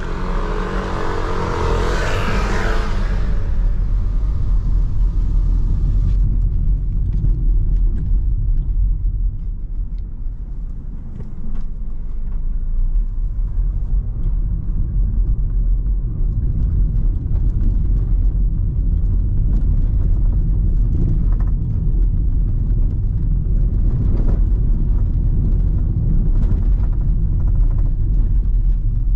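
Inside the cabin of a BMW 218i Active Tourer rolling over cobblestones and tram tracks: a dense, steady low rumble from the tyres and suspension, with scattered small knocks from the bumps. A louder rushing noise stands out for the first few seconds.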